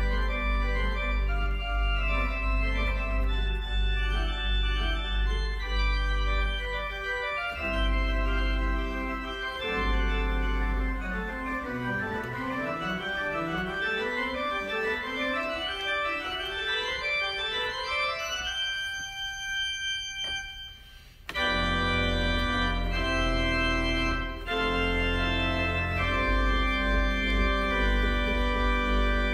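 Organ music: sustained full chords over a deep held bass, with a long rising run of notes through the middle. The sound nearly breaks off about two-thirds of the way through, then the full chords come back in.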